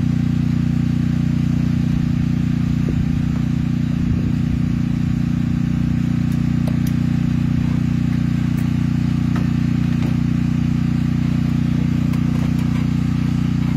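Steady low drone of the generator on a seamless-gutter machine rig, running. A few faint clicks of a hand crimp tool crimping a gutter end cap.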